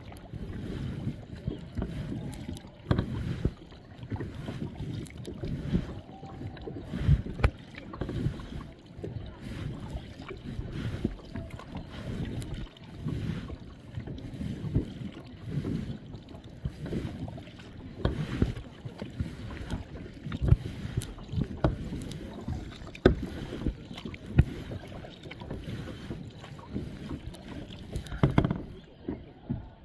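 Kayak paddle strokes dipping and splashing in the water, uneven and continuous, with a few sharp clicks among them.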